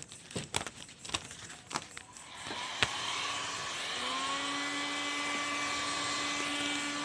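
A few sharp clicks and taps, then an electric heat gun starts about two and a half seconds in. Its fan rises to a steady whine over a rush of blown air while heating vinyl wrap film.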